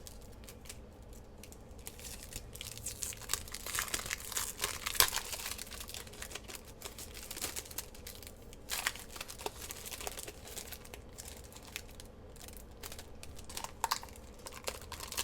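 Packaging crinkling and rustling as an item is unwrapped, with irregular crackles and a few sharper tearing sounds.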